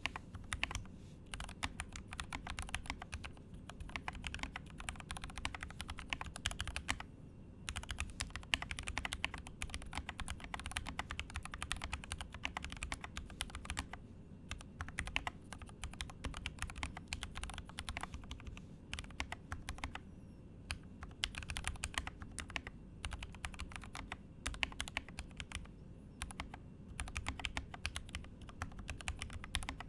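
Typing on a custom mechanical keyboard with Gateron Yellow linear switches: rapid runs of keystroke clacks, broken now and then by short pauses.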